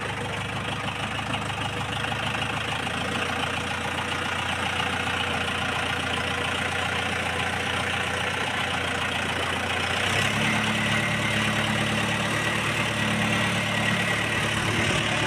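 Farm tractor's diesel engine running steadily as the tractor is driven through a wet field; about ten seconds in, its note shifts and grows slightly louder.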